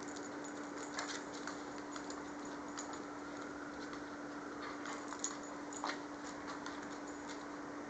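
A Maltese and a Shih Tzu play-wrestling on a wooden parquet floor: scattered light clicks and taps of claws and paws on the wood, over a steady low hum.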